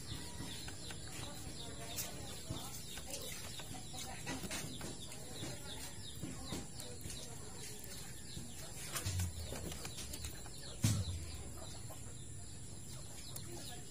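Faint background calls of birds, short scattered clucking-like sounds, with two dull low thumps about nine and eleven seconds in.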